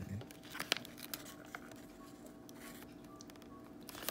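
Faint crinkling and soft clicks of a paper sandwich wrapper as a hand handles the bun of a fried chicken sandwich, mostly in the first second or so, over a steady faint hum.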